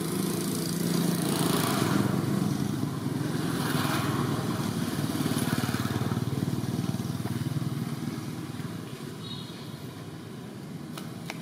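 An engine running steadily, growing louder over the first few seconds and fading away after about seven seconds.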